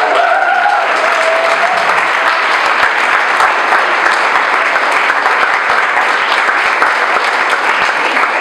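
Audience applauding steadily, with a voice briefly heard at the start.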